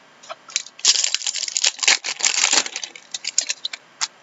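Trading cards and their pack wrappers being handled: a dense run of crackling clicks from about a second in until nearly three seconds, with single sharp clicks before and after.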